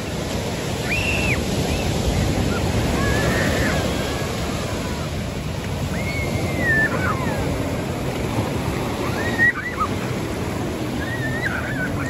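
Ocean surf breaking and washing up the sand: a steady rushing noise with slow swells in loudness.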